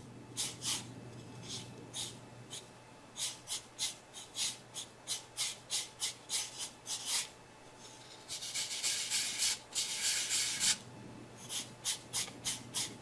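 Hand rubbing soft chalk pastel into newsprint paper to blend it, in short back-and-forth strokes, with one longer unbroken rub of about two seconds a little past the middle.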